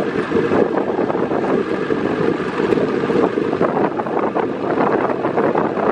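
Loud wind buffeting on the camera microphone from a moving game-drive vehicle on a dirt track, with the vehicle's engine and road noise underneath.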